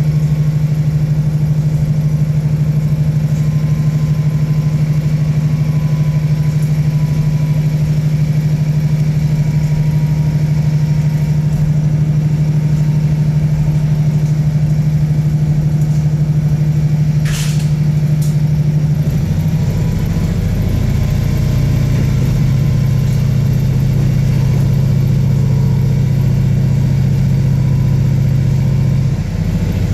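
The underfloor diesel engine of a KiHa 48 railcar drones steadily, heard from inside the carriage. About two-thirds of the way through its note drops slightly and a deeper rumble joins in. There is a brief click shortly before the change.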